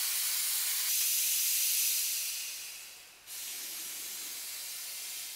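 Steam vents on the Man Engine, a giant mechanical puppet, hissing in two long blasts. The first fades out about halfway through and the second starts a moment later and stops near the end.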